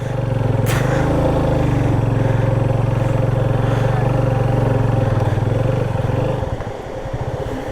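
Motorcycle engine held at steady high revs as the bike pulls through a slippery, muddy trail. About six and a half seconds in, the revs drop to a lower, uneven putter.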